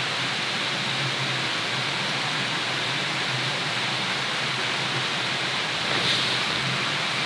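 Steady rush of a mountain stream flowing over rocks.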